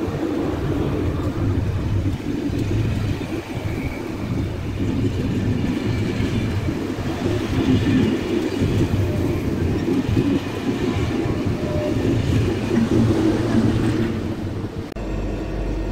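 Train of Corail passenger coaches rolling past at close range, with steady wheel-and-rail noise. The noise ends as the last vehicle clears, near the end.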